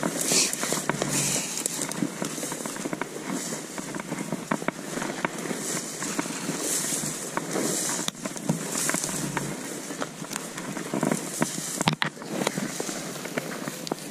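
Footsteps through dry brush and grass: stalks and twigs crackling underfoot, with a swish of vegetation against the legs every second or so and one sharper snap near the end.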